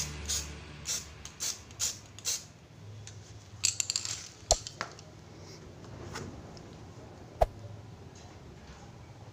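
Light clicks and knocks of hard objects being handled: first a run of regular clicks, about two a second, then a few scattered clicks and two sharper knocks, about four and a half and seven and a half seconds in.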